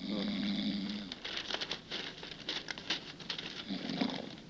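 A man snoring in his sleep: a drawn-out snore of about a second, then a run of rapid crackling clicks, and a shorter snore near the end.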